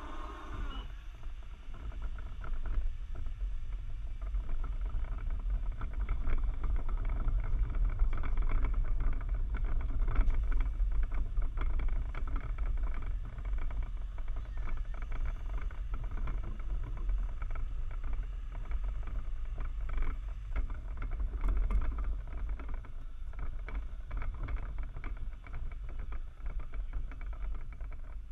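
Low, steady rumble of wind and rolling noise on a shifter kart's onboard camera as the kart rolls slowly, with scattered light knocks and rattles from the chassis.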